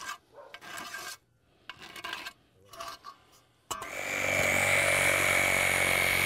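A marker scratching on the roof in short strokes, then about three and a half seconds in a cordless drill starts and runs steadily with a high whine as it bores through the asphalt shingles. The drill is the loudest sound.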